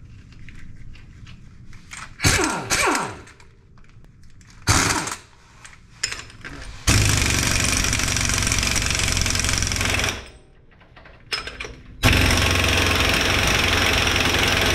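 Impact wrench tightening the transfer case's rear output flange nut: a few short spins, then two hammering runs of about three seconds each.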